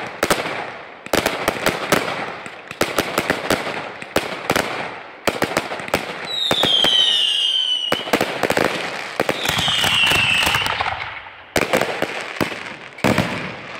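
Fireworks going off in rapid volleys of sharp bangs and crackling, in bursts with brief lulls between them. Two falling whistles sound over the volleys, about six and nine seconds in.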